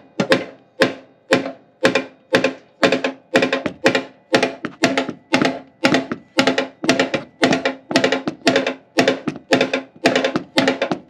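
Steady hammer blows, about two a second, on the thick steel inner fender of a 2006 Mustang GT, each strike ringing briefly with a pitched metallic tone. The bent panel is being straightened with cold hammering.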